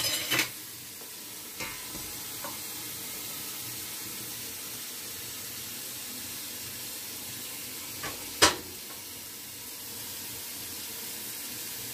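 A few short clinks and knocks of raw ribs and utensils being handled in a metal roasting pan with a wire rack, the loudest knock about eight seconds in, over a steady hiss.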